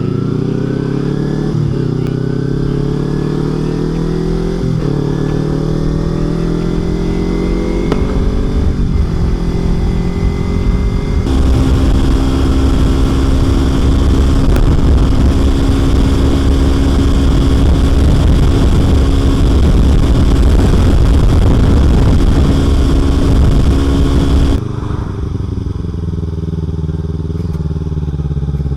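Kawasaki Ninja 300's parallel-twin engine accelerating through the gears, its pitch climbing and dropping back at each upshift. It then holds a steady cruise under heavy wind rush. About 25 seconds in, the wind noise cuts off suddenly and the engine runs on lower and quieter.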